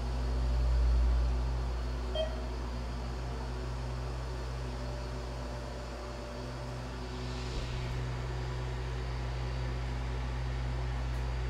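Steady low machinery hum with a faint short beep about two seconds in.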